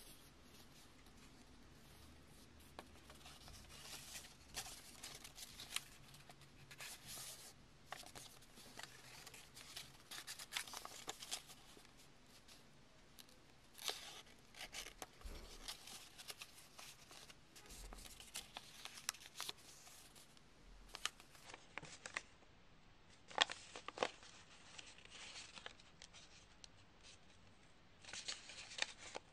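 A strip of paper being folded and creased by hand: faint, irregular rustling and crinkling of the paper, with a few sharper crackles.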